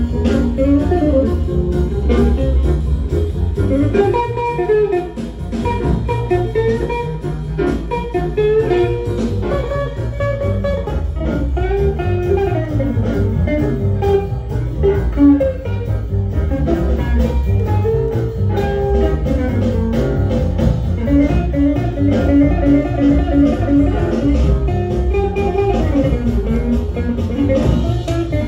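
A jazz LP playing back on a freshly repaired Lenco L75 turntable with an ADC 220X cartridge, as a test of the deck's first run after repair.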